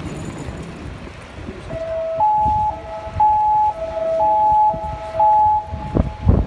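Two-tone emergency siren alternating between a high and a low note, each held about half a second, starting about two seconds in over low traffic rumble. A couple of sharp low thumps come near the end.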